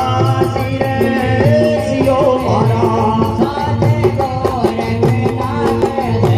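Live Rajasthani folk bhajan: a voice singing over sustained harmonium tones and a steady drum beat, with metal hand cymbals jingling and clashing in rhythm.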